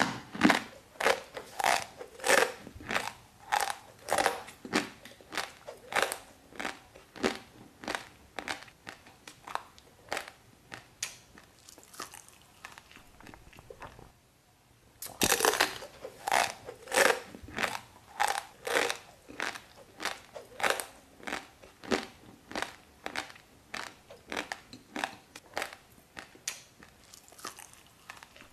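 Crunchy chewing of dry raw instant noodles: about two crunches a second, loud at first and fading away. A short pause comes near the middle, then a new loud round of chewing starts and fades again.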